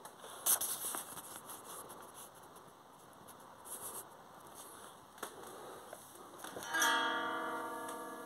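Light handling clicks and rustles, then about seven seconds in a single chord on a plucked string instrument is struck and rings out, slowly fading.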